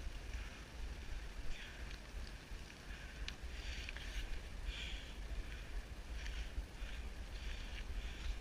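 Wind rumbling on the microphone, a steady low buffeting, with faint short sounds about once a second.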